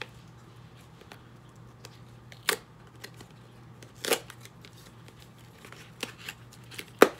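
Small cardboard lens box being opened by hand: scattered light scrapes and ticks of the packaging, with three sharper snaps, the loudest near the end.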